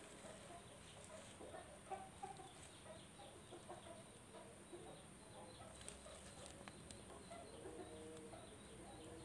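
Near silence: faint background noise with scattered short, faint sounds in the background and a few soft clicks.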